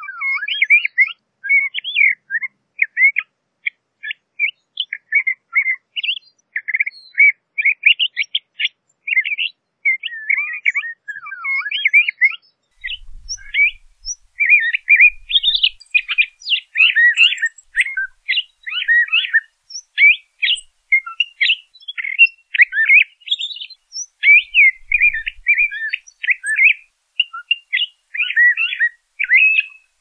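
LeConte's thrasher singing: a long, continuous run of varied short phrases, many of them quick upward or downward slurs, following one another with hardly a break.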